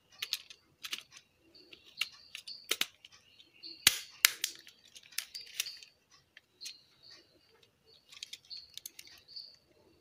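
Irregular small plastic clicks and taps from handling a JVC car stereo's detachable faceplate, as its keypad circuit board is seated in the plastic housing and the buttons are pressed. The two sharpest clicks come about four seconds in.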